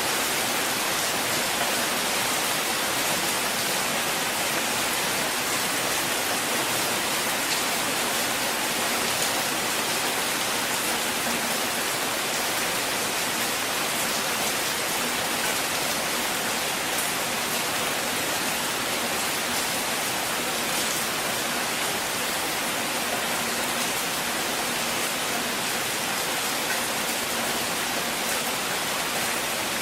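Steady rain, an even hiss of falling water with faint scattered ticks of individual drops.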